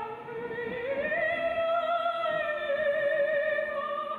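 Live opera music with orchestral strings. A long melody note steps up in pitch about a second in and is held.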